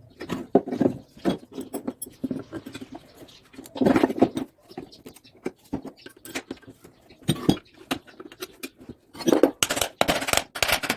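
Irregular scraping and clicking of a hand tool against the metal of a washing machine motor while its bearing seat is being cleaned, with busier stretches about four seconds in and near the end.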